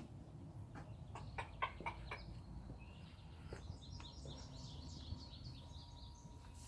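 Wild bird calling: a quick run of short, sharp calls, then about a second later a fast, high twittering series lasting a few seconds.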